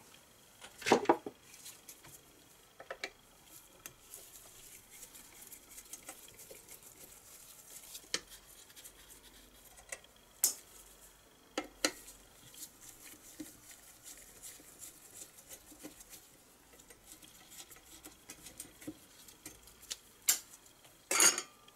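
Scattered light metal clicks and taps of hand work on a 1970 Briggs & Stratton 2 hp engine, as the wire-mesh rotating screen is pried off its flywheel. A handful of sharper clicks stand out, with quiet between.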